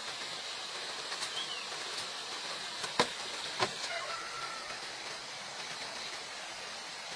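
Two sharp knocks about half a second apart, over a steady background hiss with a faint high steady tone.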